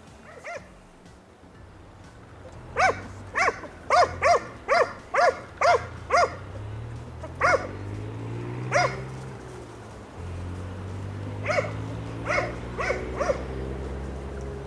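Hunting hound giving tongue on a hare's trail: short, sharp barks, first a quick run of about eight at roughly two a second, then two single barks, then four more near the end.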